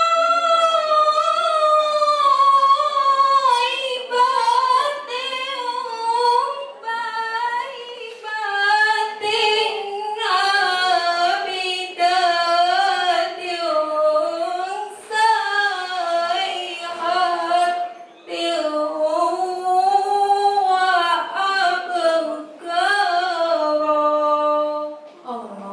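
A woman's solo voice reciting the Qur'an in melodic tilawah style into a microphone: long held notes with ornamented turns, phrase after phrase with short breath pauses between, stopping near the end.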